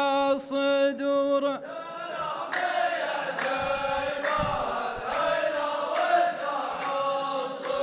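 A solo male voice finishes a chanted line of muhawara poetry about a second and a half in. A row of men then chants the line back in chorus, with sharp hand claps about once a second.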